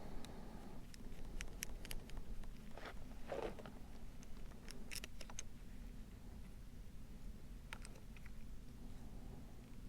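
Faint, scattered clicks and taps of small metal parts and hand tools being handled while fitting a motorcycle clutch perch, with a short scrape about three and a half seconds in, over a steady low hum.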